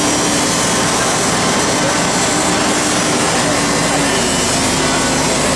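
Angle grinder cutting through the metal fittings of a neon sign, running steadily with a grinding hiss and a whine that dips slightly in pitch now and then.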